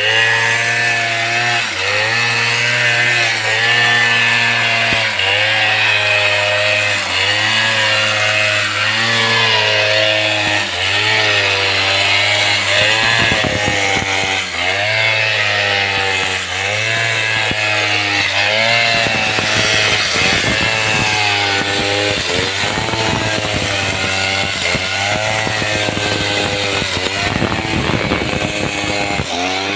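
Stihl chainsaw running near full throttle, cutting into a jackfruit tree. The engine pitch dips briefly about once a second as the chain bites under load, then climbs back. A dense rattling crackle joins over the second half.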